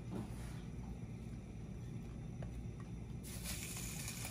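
Low steady hum with a couple of faint clicks, then about three seconds in a soft hiss starts: cream cheese dropped into a heated stainless steel skillet beginning to sizzle.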